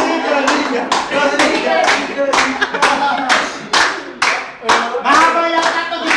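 A group of people clapping their hands in a quick, fairly even rhythm, about three claps a second, with voices over the clapping.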